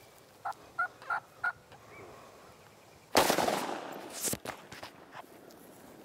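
Four short turkey yelps in quick succession, then a single blast from a 20-gauge Benelli shotgun about three seconds in, the loudest sound, fading over about a second. A second, shorter noisy burst follows about a second later.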